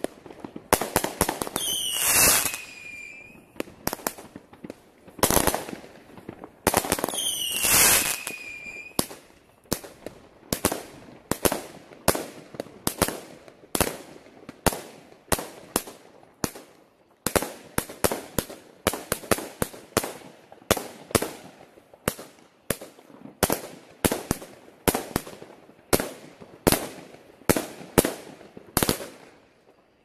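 A multi-shot consumer fireworks battery firing, a string of sharp bangs one after another. Twice early on, about six seconds apart, a louder shot carries a whistle that falls in pitch. After that the bangs come at a fairly even pace, roughly one or two a second.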